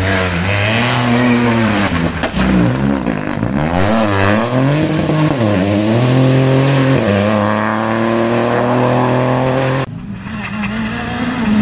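Rally car engine revving hard, its pitch rising and falling repeatedly as the driver brakes and accelerates through a hairpin, then holding steadier. About ten seconds in the sound cuts abruptly to another rally car's engine, quieter at first and rising near the end.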